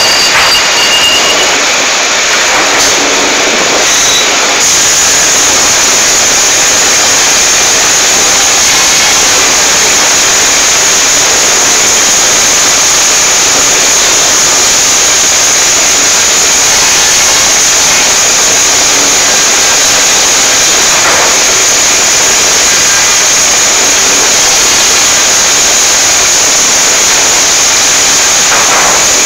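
Large band sawmill running steadily: a loud, even machinery hiss with a steady high whine over it and no pauses.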